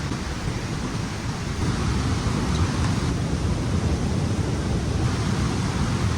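Steady roar of a waterfall, a dense, even rush of water strongest in the low rumble.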